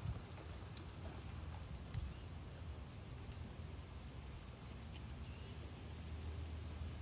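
Quiet background with a steady low hum and scattered short, faint, very high chirps, about a dozen over the stretch.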